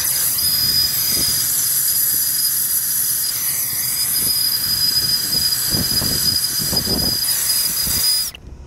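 Air-acetylene brazing torch burning with a steady loud hiss and a thin high whistle, heating a copper water pipe joint; the hiss cuts off suddenly near the end.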